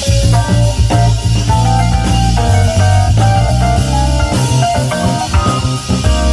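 Live rock band playing an instrumental passage: electric guitar lines over a heavy bass and drum kit, loud and continuous.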